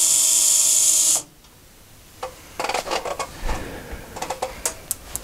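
Cordless drill/driver running steadily, backing a screw out of a sheet-metal cover panel, then stopping abruptly about a second in. After a short pause come scattered light clicks and rattles of loose screws being handled.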